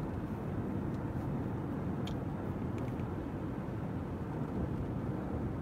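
Steady low rumble of a car driving at highway speed, heard from inside the cabin: engine and tyre noise, with a couple of faint ticks about two and three seconds in.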